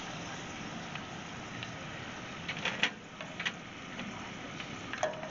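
Hot oil in a cast-iron pot sizzling steadily as a wire frying basket is lifted out, with a few light metallic clinks from the basket a little past the middle.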